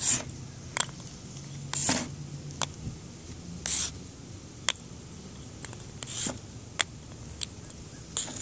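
Handling noise: four short scuffs and scattered light clicks spread through, as sidewalk chalk sticks and the phone are moved about over concrete.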